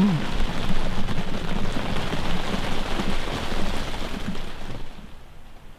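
Rain pattering steadily on the fabric roof of a hunting ground blind, becoming much quieter about five seconds in.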